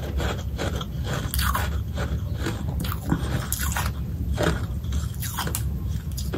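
A person biting and chewing hard freezer frost close to the microphone: irregular crispy crunches, about two a second.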